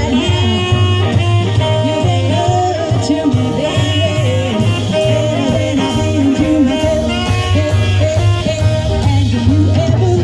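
Live band playing: a woman singing over saxophone, electric guitar, upright bass and a drum kit keeping a steady beat.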